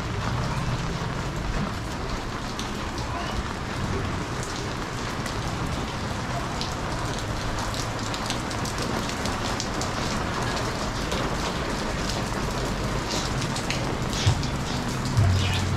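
Steady rain falling on surfaces, with individual drops striking close by more and more often in the second half.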